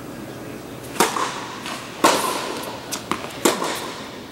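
Tennis balls struck by rackets and bouncing on an indoor court: a serve about a second in, then several more sharp hits and bounces, each ringing briefly in the large hall.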